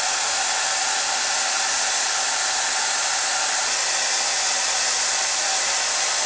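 Handheld hair dryer running steadily: an even blowing rush of air with a faint steady motor tone in it.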